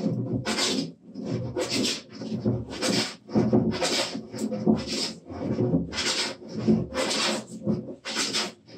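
Wooden jointer plane shaving a hardwood workbench top in short, quick strokes, about two a second, taking heavy cuts off a high corner while flattening the top.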